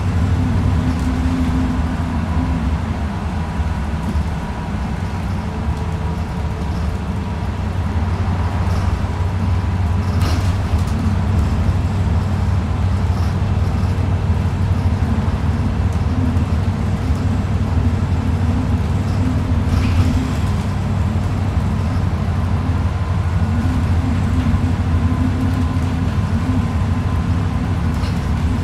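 Steady low rumble of a city bus's engine and running gear heard from inside the passenger cabin, with a faint steady whine and a couple of faint clicks.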